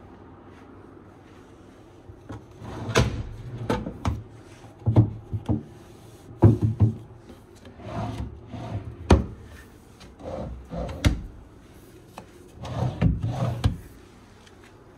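Things being handled: a run of sharp knocks and thuds with rubbing, scraping sounds between them, starting about two seconds in and stopping about a second before the end.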